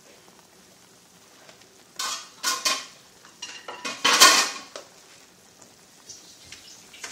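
A large metal stockpot of boiling chicken broth being handled: a few short clanks and scrapes of metal on metal about two seconds in, then a longer, louder burst of clatter a little past the middle.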